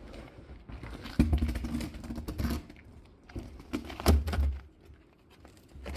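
A few separate knocks and thumps, with clattering in between, as objects are handled and set down.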